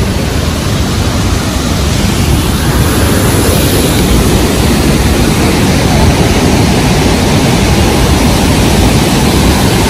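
Loud, steady rushing roar of Victoria Falls, with spray and wind buffeting the microphone; it grows a little louder about two seconds in.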